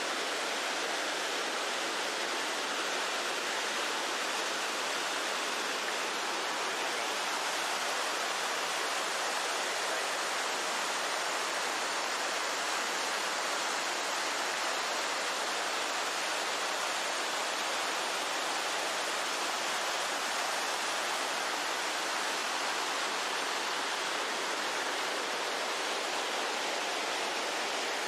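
A waterfall's falling water making a steady, unbroken rush of spray and splashing, with no change in level.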